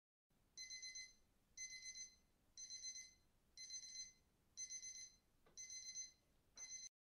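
Electronic alarm clock beeping, faint: seven quick groups of about four high beeps, one group a second, the last group cut off short just before the end.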